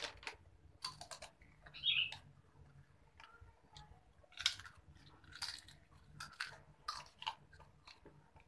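A person chewing and biting snack food close to the microphone, in irregular bursts of bites.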